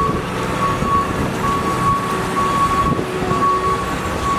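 Reversing alarm of a snow-clearing vehicle beeping repeatedly over the low rumble of its engine.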